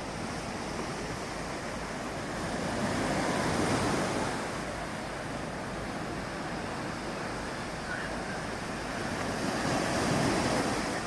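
Storm surf on the Black Sea: a steady rush of waves breaking, swelling louder about three seconds in and again near the end, with wind rumbling on the microphone.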